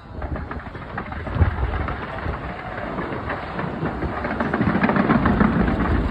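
Fireworks display: a dense, rapid crackle of pops mixed with low booms, the heaviest boom about a second and a half in, growing denser and louder toward the end.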